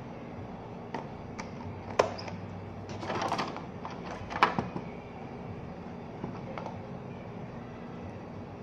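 Handling noise from a small power bank being turned over in the hands: a few sharp clicks and taps, the loudest about two seconds in and again past the middle, with a brief rustle between them, over a steady low hum.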